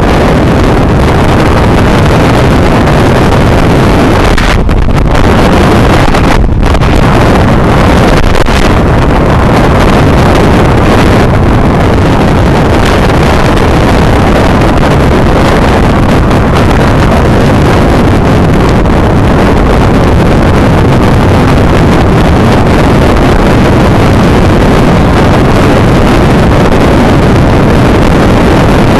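Loud, steady wind roar buffeting the microphone of a camera on a bicycle moving at speed.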